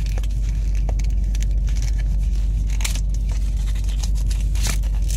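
A foil Pokémon booster pack crinkling and tearing in a child's hands as it is opened, in scattered short crackles. Under it runs the steady low rumble of a moving car's cabin.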